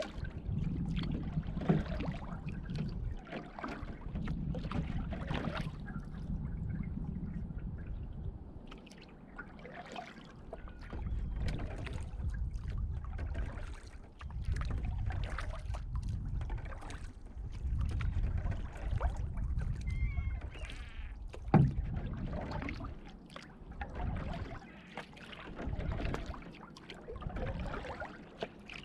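Canoe being paddled on calm water: paddle strokes, drips and small splashes with water lapping at the hull, over a low rumble that swells and fades every few seconds. A single sharp knock about two-thirds of the way through.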